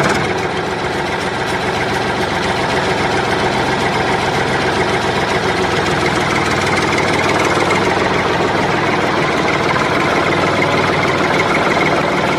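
An engine idling steadily, a dense even running sound that holds unchanged throughout, typical of a tractor engine sound effect.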